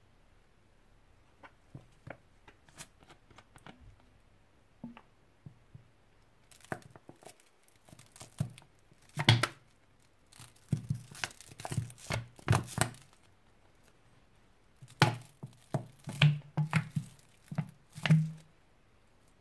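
Thin plastic soda bottle crinkling and crackling as it is squeezed, with thick slime squelching out into a glass bowl. Scattered light clicks at first, then louder bursts about nine to thirteen seconds in and again from fifteen to eighteen seconds.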